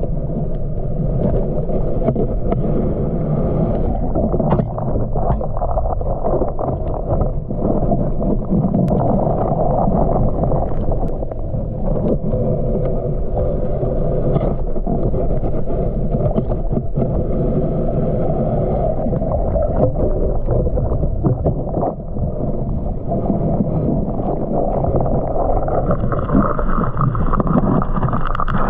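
Muffled underwater sound from a submerged camera: a steady low rumble of water moving against the housing, with a faint steady drone and scattered small clicks.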